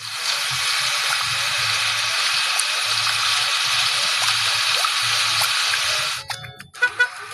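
A steady rushing hiss like water gushing, cutting off suddenly about six seconds in, over a faint low repeating beat.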